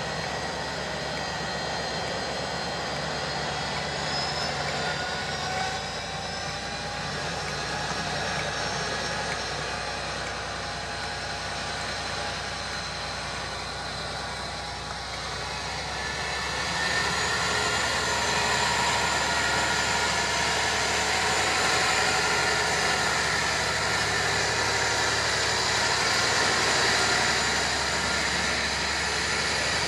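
Class 57 diesel locomotive 57314 pulling away with its train. The engine runs with a high whistling whine over a low rumble, and grows louder about halfway through as the locomotive comes past close by.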